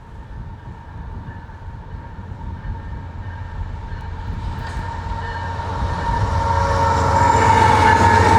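CPKC crude oil train's diesel locomotives approaching, their rumble growing steadily louder. Over it, a locomotive air horn sounds a long chord of several steady notes that swells as the train nears.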